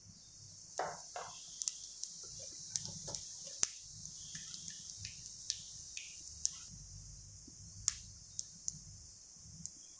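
Cumin seeds sizzling in hot oil in a kadhai, the first step of a tadka: a steady soft hiss with sharp crackles and pops scattered throughout.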